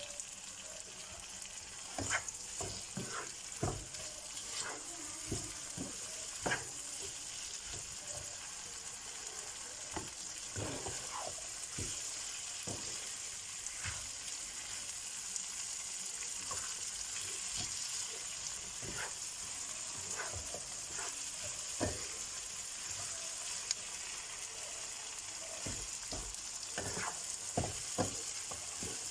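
Okra sizzling as it fries on high heat in a pan of onion-tomato masala: a steady hiss, with scattered scrapes and knocks as it is stirred.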